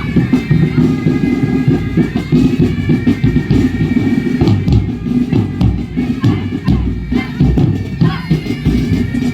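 Loud music with a fast, dense beat and sustained held notes over it.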